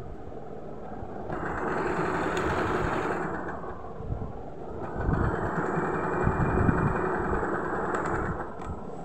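Usha Janome electronic sewing machine stitching an interlock seam: motor and needle run in two spells, about two and three seconds long, with a short pause between.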